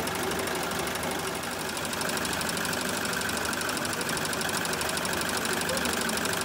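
Melco multi-needle embroidery machine stitching into a webbing strap, its needle running at a fast, steady, even rhythm.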